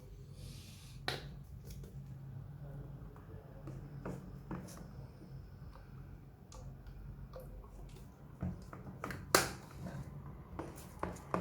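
Hands working slime, with soft wet squishes and scattered small clicks and pops; one louder pop comes about nine seconds in.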